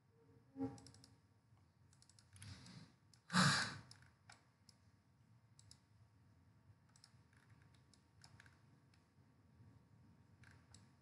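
Faint computer mouse clicks, scattered and irregular, as menu items are picked on screen. There is a louder breath about three and a half seconds in.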